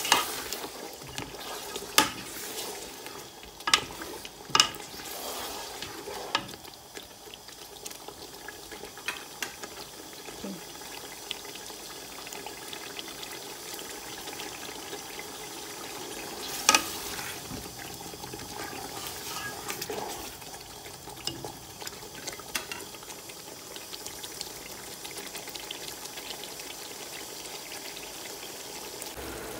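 Mutton pieces frying in a bubbling tomato-onion masala in a karahi, sizzling steadily while being stirred, with a slotted spatula knocking against the pan several times in the first few seconds and once more about halfway. This is the bhuna stage, the meat being fried in the masala before water is added.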